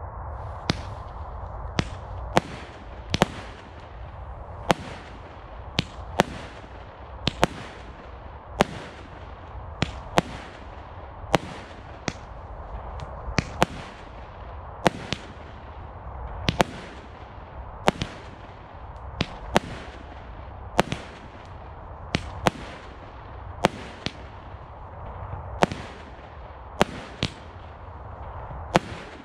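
Consumer firework cake (barrage) firing a long string of shots, about one sharp bang a second at uneven spacing. Each bang is a shell bursting in the air and is followed by a short fading echo.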